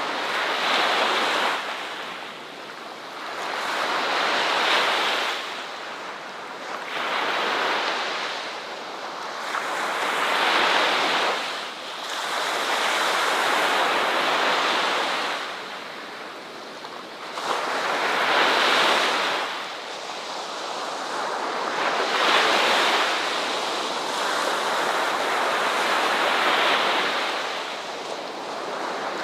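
Ocean waves washing onto a beach in a continuous hiss that swells and ebbs every few seconds, one wave after another.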